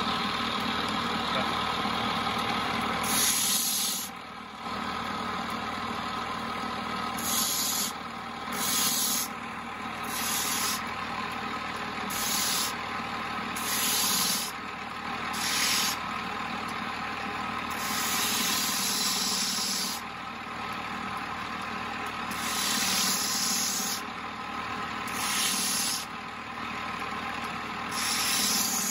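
Electric lapidary grinding disc spinning with a steady motor hum, while a quartz crystal point is pressed against its face in a dozen or so short passes. Each pass makes a hissing, rasping grind lasting a second or two.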